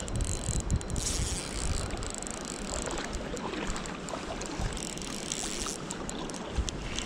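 Creek water rushing steadily, with an irregular low rumble of wind buffeting the microphone.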